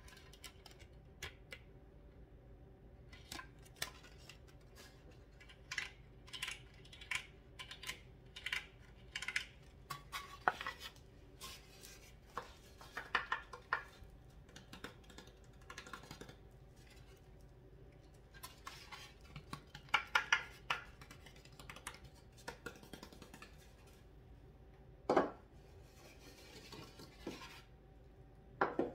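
A wooden triangle shelf is handled on a countertop: scattered light taps, knocks and scrapes of wood, with a few scratchy rustles. The loudest knocks come about twenty and twenty-five seconds in.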